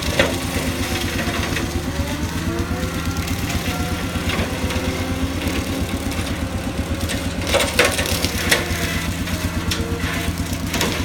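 Skid steer engine running steadily under work. Sharp cracks cut through it just after the start, twice close together past the middle, and again near the end.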